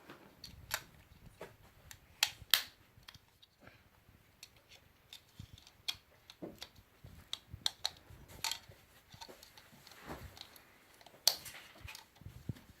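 LEGO pieces clicking and knocking as they are handled and pressed together, irregular sharp clicks with short pauses between; a few louder snaps about two seconds in, near the middle and about eleven seconds in.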